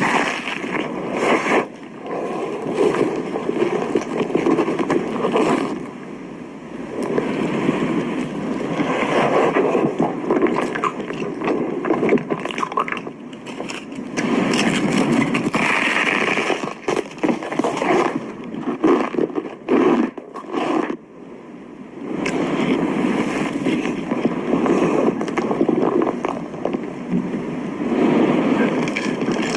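Close-miked chewing and crunching of food, coming in stretches of several seconds with short pauses between them.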